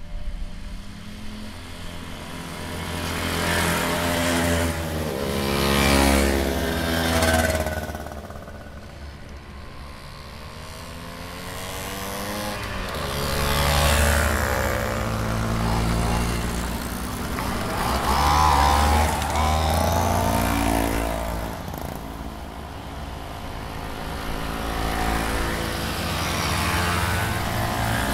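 Several vintage mopeds riding past one after another, their small two-stroke engines buzzing and dropping in pitch as each goes by.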